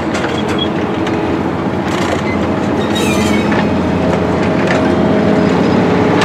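Stainless-steel passenger cars of a slow-moving train rolling past close by: steel wheels rumbling and clicking over the rail joints. There are a few short, high wheel squeals about three seconds in.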